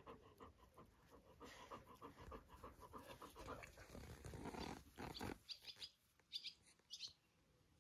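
Faint, quick panting of dogs close by, several short breaths a second, with a louder scuffle about two-thirds of the way through and a few short high chirps near the end.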